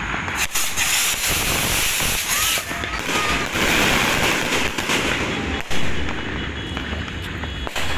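A barrage of kwitis, small bamboo-stick skyrockets, launching together: a dense hiss and crackle of many rockets going up, with scattered pops and one sharp bang almost six seconds in.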